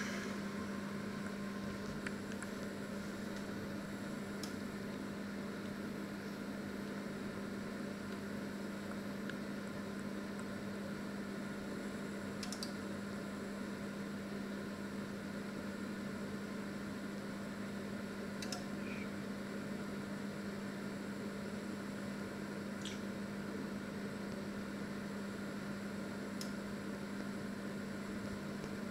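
Panasonic microwave oven running: a steady low hum with an even fan-like rushing noise, and a few faint ticks along the way.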